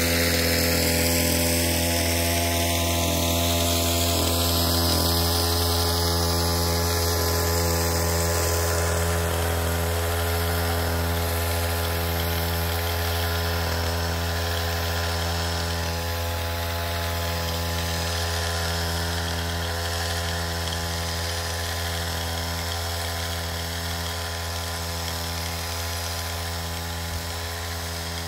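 Motorized backpack crop sprayer running with a steady hum as it pumps pesticide mix to the spray wand, slowly fading as it is carried away down the rows.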